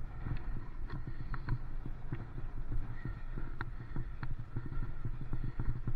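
Bicycle rolling over a rough, wet lane, the handlebar-mounted camera rattling and knocking with each bump over a steady low rumble, with scattered sharp clicks.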